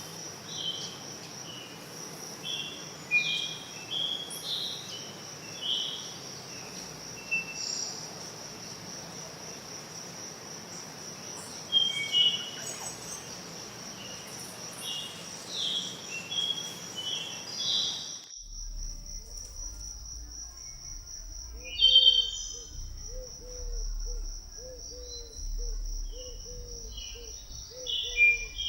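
Forest birds singing in short phrases over a steady, high-pitched insect drone. About 18 seconds in, the background hiss drops away abruptly, as at a cut to another recording. A low call repeated about twice a second then joins the drone and birdsong.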